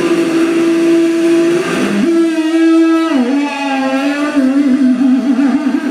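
Live heavy metal on a concert PA, heard from the crowd: an electric guitar holding long sustained notes, stepping up about two seconds in, bending down a second later and ending in a fast trill.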